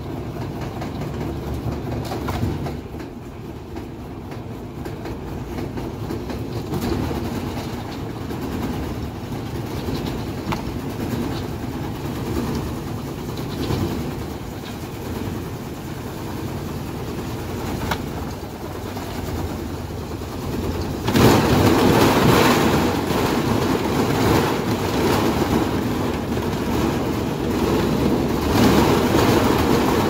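Top-loading washing machine spinning its drum at speed, running with continuous rattling and knocking. About 21 seconds in it suddenly grows louder and harsher.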